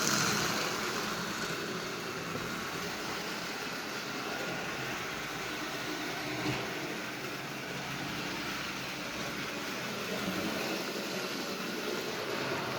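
Lionel No. 50 gang car running steadily on O-gauge track under AC power: its small motor whirring and its wheels rolling on the rails, with one light click about halfway through.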